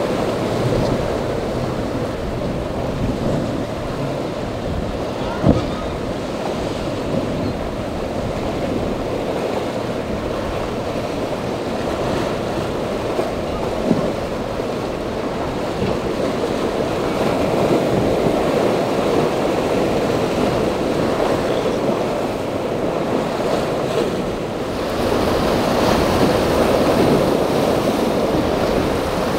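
Rough sea: waves breaking and churning into spray, with steady wind rumble on the microphone. A short knock comes about five seconds in and another about halfway through, and the sound grows louder near the end.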